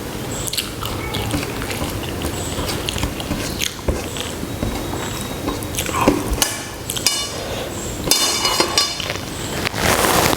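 A person eating rice and curry close to the microphone: wet, irregular chewing and mixing sounds with small clicks, and a louder burst of noise near the end.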